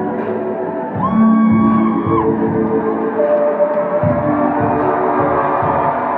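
Live band music heard from the crowd: held, ringing chords that change every second or two over a deep bass, which drops in about a second in and again around four seconds in.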